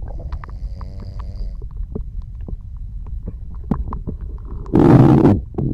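Stomach and intestinal digestion sounds: a steady low rumble scattered with small pops and gurgles, a drawn-out squeaky gurgle in the first second and a half, and a brief, louder rushing sound about five seconds in.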